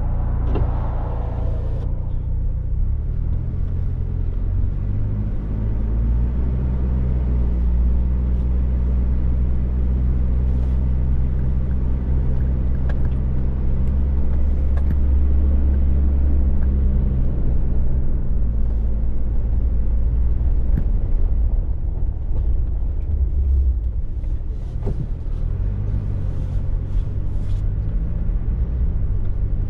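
A motor vehicle running: a steady, loud low engine drone and rumble that shifts slightly in pitch, with a few faint ticks over it.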